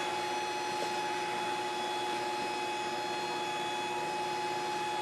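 A steady mechanical hum with a constant whine, unchanging throughout.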